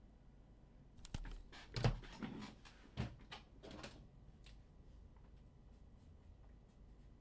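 A handful of light clicks and knocks from objects being handled on a desk, bunched between about one and four seconds in, then faint room tone.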